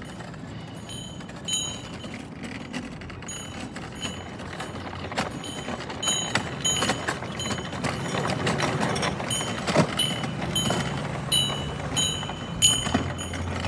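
A small bell rings again and again in short, high strikes, over a low rumble that slowly grows louder.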